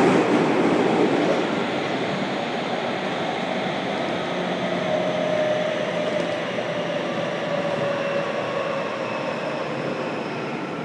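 JR Kyushu 303 series electric train running underground, heard from inside a motor car: a steady rumble of wheels on rail, with a motor whine that slowly falls in pitch as the train slows.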